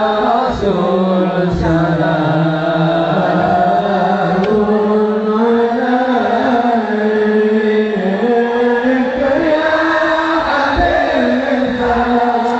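A sholawat, an Islamic devotional song, sung in a slow, drawn-out melody with long held notes that bend up and down.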